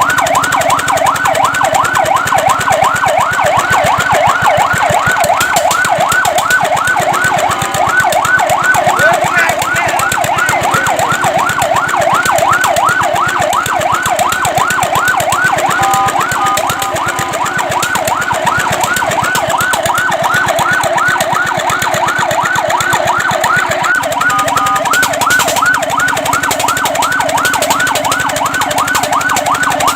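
Fire truck's electronic siren on a fast yelp: a loud rising-and-falling wail repeating about four times a second, held steadily.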